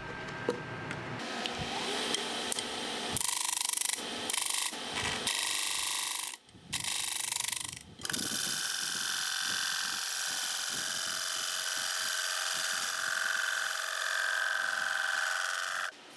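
A power tool working wood, giving a steady hiss. It starts and stops abruptly a few times in the first half, then runs steadily and cuts off suddenly near the end.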